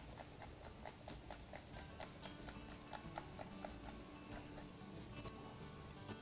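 Kitchen knife cutting peppers on a cutting board, a steady run of light knocks at about four strokes a second.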